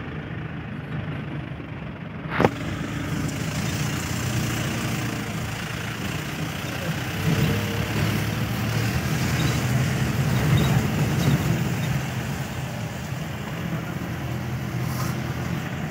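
Car engine and tyre noise heard from inside the cabin while driving slowly along a rough mountain road, with one sharp knock about two seconds in.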